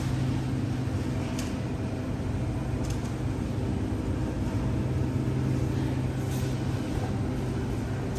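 Steady low mechanical hum of a grocery store's machinery, with a few faint clicks about a second and a half, three and six seconds in.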